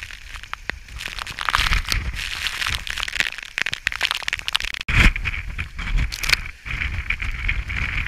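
Gale-force wind of around 40 knots buffeting the camera microphone: an irregular low rumble rising and falling with the gusts, with crackling and a steady hiss. The sound drops out for an instant about five seconds in.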